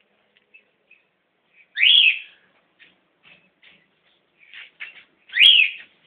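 A white parrot squawking: two loud, shrill calls that each sweep up and back down, about three and a half seconds apart, with faint short chirps between them.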